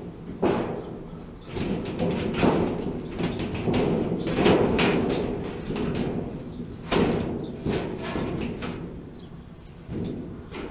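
Sheet-metal water heater enclosure door being handled and shut: a run of irregular knocks, rattles and scrapes of thin metal.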